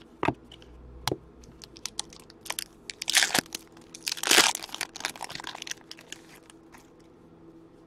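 Plastic card wrapper and sleeves crinkling and rustling as hands sort a stack of trading cards, with a few light clicks. The rustling is loudest about three and four and a half seconds in and dies away near the end.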